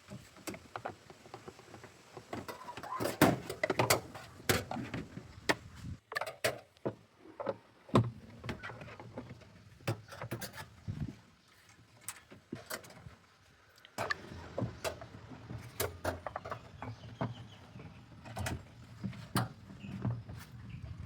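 Irregular clicks, knocks and scrapes of hands and tools working on a front-load washing machine's parts, in several short stretches that change abruptly.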